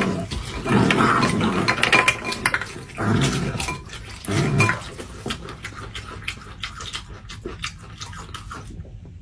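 A man grunting and growling with his mouth full as he crams in Takis rolled tortilla chips, four short low grunts in the first half, over steady wet crunching and chewing that goes on alone in the second half.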